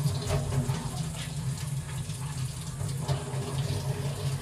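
Canned beef loaf bubbling and sputtering at the boil in its open tin over a gas burner flame, a dense crackle over a steady low rumble.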